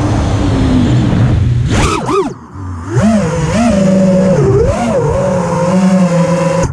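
FPV quadcopter's brushless motors whining over a steady rush of air, the pitch swooping with the throttle. About two seconds in they punch up and fall away almost to nothing for a moment, then come back on with a warbling, rising and falling whine.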